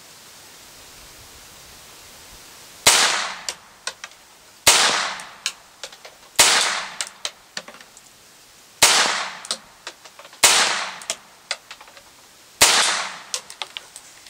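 Vostok Margolin .22 Short target pistol fired six times, about one and a half to two seconds apart, with low-velocity CCI CB Short rounds. Each sharp shot is followed by a few small clicks as the slide cycles and cocks the hammer even on this weak load.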